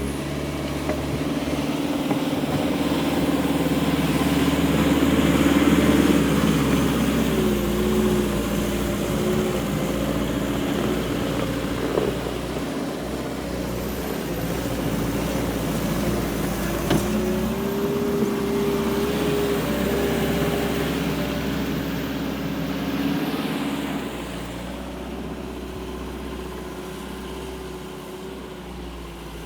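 JCB 1CXT's diesel engine running as the machine works, its pitch rising and falling with the throttle. It is loudest about six seconds in and drops somewhat near the end, with a couple of brief knocks along the way.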